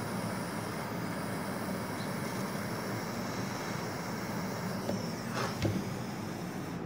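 Handheld gas torch flame hissing steadily as it heats a solder joint, with a few knocks about five seconds in as the torch and work are handled.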